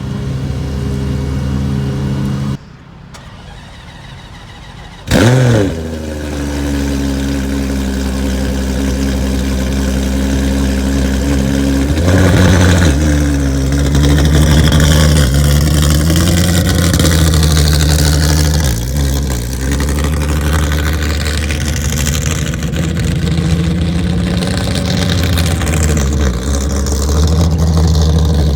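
High-performance car engine starting with a sudden loud flare about five seconds in, then settling into a steady idle. It is blipped up around the middle and keeps running with small rises and falls in revs.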